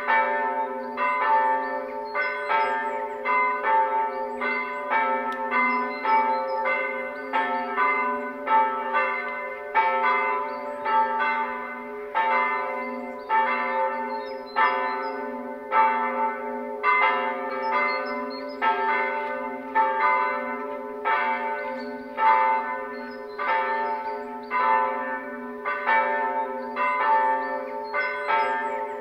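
Church bells ringing before a service, struck over and over at a little over one stroke a second, each stroke ringing on under the next. This is the call to worship ahead of the opening hymn.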